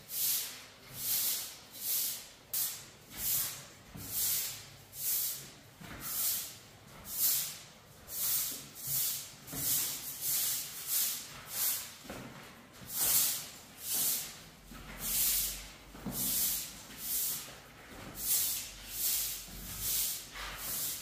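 Short-handled grass broom sweeping a bare concrete floor: a steady run of swishes, about one stroke a second.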